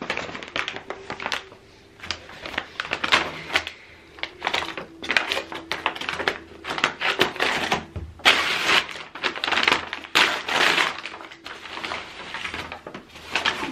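Brown kraft-paper shipping bag being cut open with scissors and pulled apart by hand, giving loud, irregular crinkling and rustling of stiff paper that is densest in the second half.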